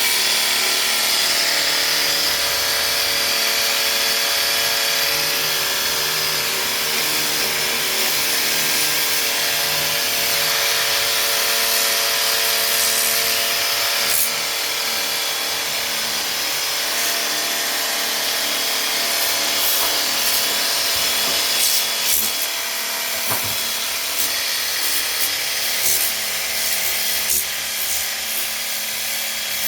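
Electric pressure washer's motor running steadily while its water jet hisses, washing the dirt out of a split air conditioner's indoor unit. A few short knocks come in the second half.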